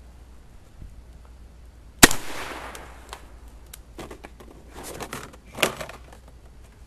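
A Benelli shotgun fires one loud shot about two seconds in, its report dying away over about half a second. Scattered clicks and knocks follow, and a second, quieter bang comes near the end.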